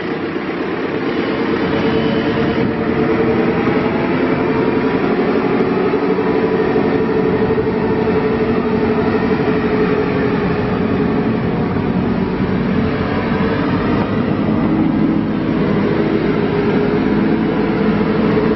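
Diesel engine of a JCB 3CX-14 backhoe loader running steadily under way. It gets louder over the first few seconds, then holds even.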